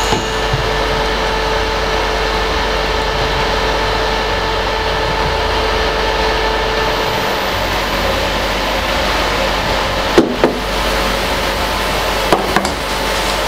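Steady hiss of sauce frying in a hot stone-coated frying pan while shrimp are scraped out with a spatula. Two sharp knocks of pan or spatula come about ten seconds in, and two more about twelve and a half seconds in.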